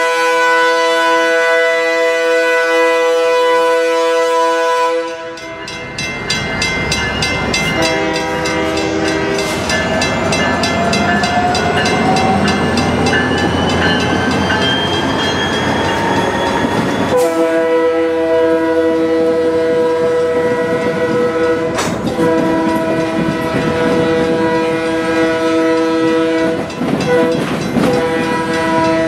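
Leslie RS-3K three-chime air horn on a BNSF GP25 locomotive blowing long, screeching-loud blasts, with a break of about twelve seconds while the locomotive rolls close past with engine noise and a slowly rising whine. Freight cars then clatter over the crossing as the horn sounds again.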